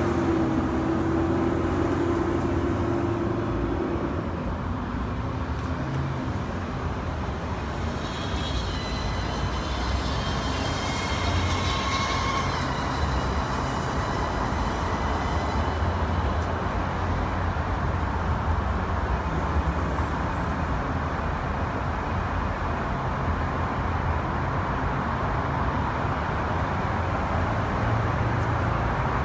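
Steady road traffic noise, a continuous low rumble, with a brief higher-pitched whine passing through about ten seconds in.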